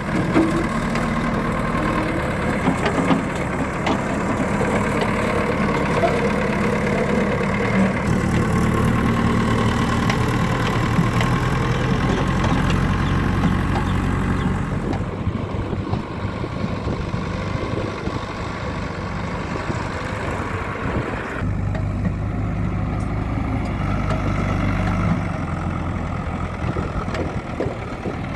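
Diesel engines of a backhoe loader and tractor running steadily, with the engine note changing abruptly about halfway through and again a few seconds later.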